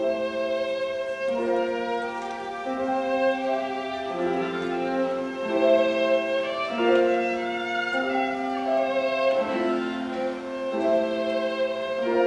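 Live chamber quartet of flute, violin, cello and piano playing, with the bowed violin prominent; long held notes move together to new chords roughly every second or so.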